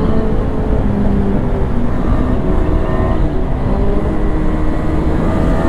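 KTM 390 Duke single-cylinder motorcycle engine running at road speed, its pitch stepping up and down with throttle and gear changes, under heavy wind rumble on the microphone.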